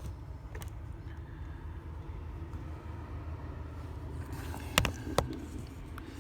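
Steady low rumble with two sharp clicks about a third of a second apart near the end, from parts and the camera being handled inside the car.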